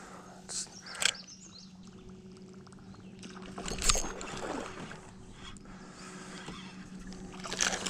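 Fishing rod and spinning reel being handled and cast for topwater fishing, with a few light clicks early on and one sharp swish about four seconds in as the lure goes out. A steady low hum runs underneath.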